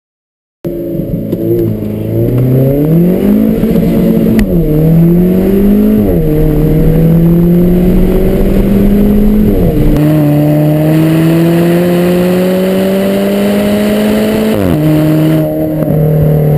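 Alfa Romeo 4C's turbocharged four-cylinder engine accelerating hard through the gears. Its pitch climbs, then drops sharply at each of four upshifts, and each gear's climb runs longer and slower than the one before.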